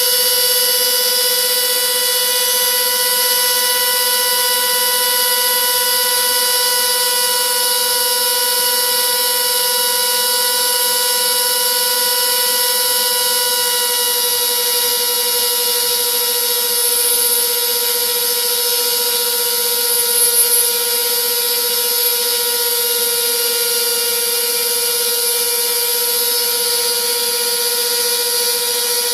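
Homemade CNC router's spindle whining at a steady high pitch while carving wood, the pitch sagging slightly in the middle of the stretch as the cut loads it, with two brief louder spots around two-thirds through.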